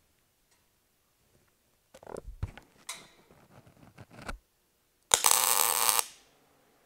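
A single tack weld: about a second of crackling welding arc that starts and stops abruptly, tacking a gusset to a headache-rack frame. A few light knocks and clicks come before it.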